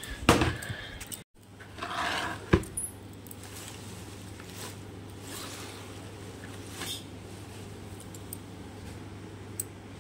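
Bunch of fresh leafy greens rustling in a plastic basin as it is handled, with glass bangles clinking and a few louder knocks in the first three seconds. Then a faint, steady low hum with only light ticks.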